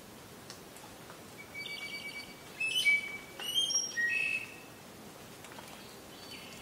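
A bird singing one phrase of clear notes, each held at a steady pitch and stepping up and down between them, starting about a second and a half in and ending after about three seconds, over a faint steady background hiss.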